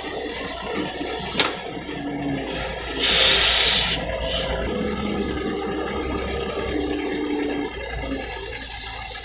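Doosan DX140W wheeled excavator's diesel engine running under load as it digs, with a sharp click about a second and a half in and a loud hiss lasting about a second, about three seconds in.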